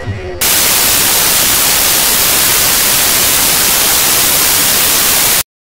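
Loud, steady static hiss like white noise, starting abruptly about half a second in and cutting off suddenly near the end.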